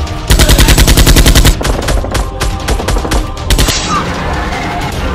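Automatic gunfire sound effect: a loud burst of rapid shots, about ten a second, lasting just over a second, followed by a few scattered shots about three seconds in.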